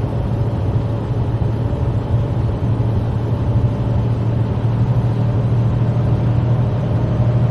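Steady road noise of a moving car: a low, even drone of engine and tyres on the road with a constant hiss over it.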